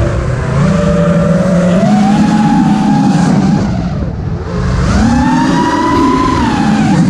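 Racing quadcopter's Emax Race Spec brushless motors and props whining, the pitch rising and falling with throttle, with a dip about four seconds in and a climb again a second later. A heavy rumble of wind and prop wash runs under it.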